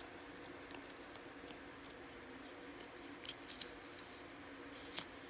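Faint handling of trading cards: a few soft, sharp clicks, twice about three seconds in and once near the end, over a low steady hiss.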